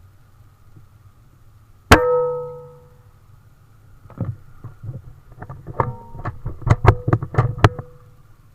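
Single sharp air-rifle shot about two seconds in, with a metallic ring that dies away over about a second. A run of a dozen or so clicks and knocks follows, some of them ringing briefly.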